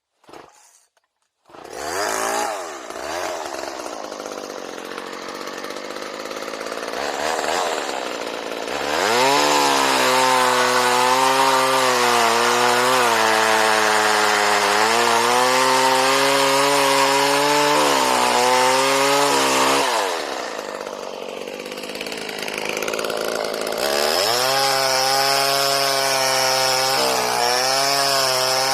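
Homelite Super 2 two-stroke chainsaw starting up about a second and a half in. It runs at lower revs, then at high throttle in two long stretches with a dip between them. Its pitch wavers under load as it cuts wood.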